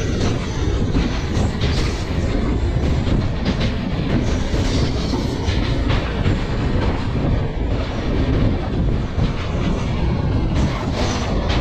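Rajdhani Express coach running at speed, its wheels rumbling and clattering on the rails, as it passes close alongside a goods train of flat wagons loaded with rails on the next track. The sound is loud and steady, with irregular clicks and knocks through it.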